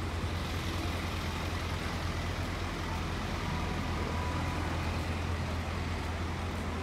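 Street traffic: motor vehicles running on a city road, a steady low engine rumble under a wash of road noise.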